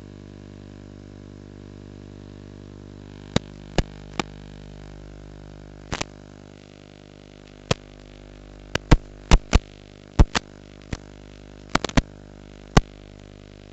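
Steady electrical hum with a faint hiss, typical of the audio channel of an analog FPV video link, broken by about fifteen sharp clicks. The clicks come singly and in quick pairs from about three seconds in, densest between nine and twelve seconds.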